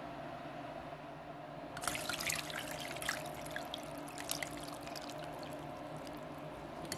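Water and soaked tangerine peels poured from a bowl into a metal mesh strainer, splashing and spattering through the mesh. The pour starts about two seconds in, heaviest at first, then thins to a scatter of drips and small splashes.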